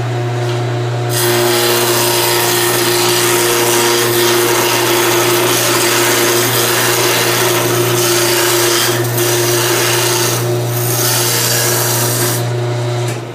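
Wood lathe running with a steady motor hum while a turning tool cuts into a spinning wood blank, roughing it round. The cutting noise starts about a second in and stops near the end, and the motor cuts off just after.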